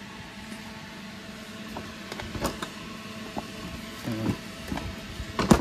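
Scattered clicks and knocks of motorcycle body parts being fitted back on by hand, with a loud cluster of knocks near the end, over a steady low hum.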